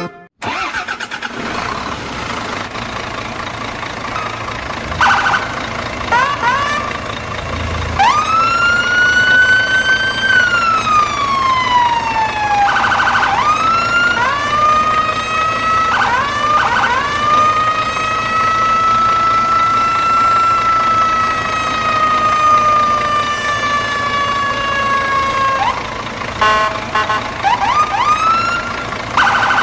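Siren wailing in long swoops over a steady low engine-like rumble. It rises sharply, holds, then glides slowly down, with short rising yelps in between.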